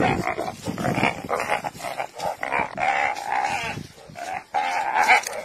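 Spotted hyena squealing in distress, over and over, while a donkey holds it by the ear in its teeth; several of the calls are drawn out for about half a second.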